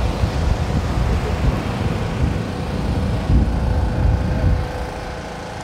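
Wind buffeting the microphone at the seashore, a loud, uneven low rumble over surf, with a faint steady hum behind it; the buffeting eases about four and a half seconds in.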